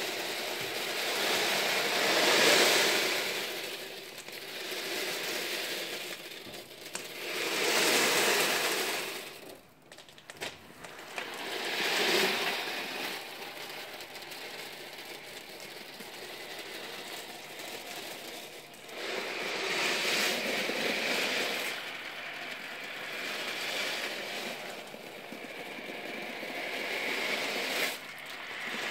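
Thousands of 8 mm steel ball bearings rolling and rattling in a mass across a tray as it is tipped, packing into a lattice. The rushing rattle swells and fades about five times.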